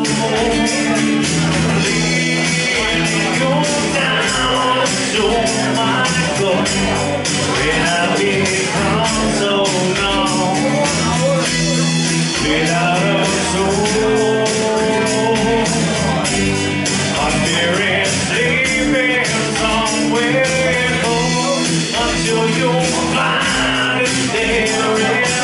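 Live amplified acoustic pop-rock: a man singing into a handheld microphone over a strummed acoustic guitar, with a steady beat underneath.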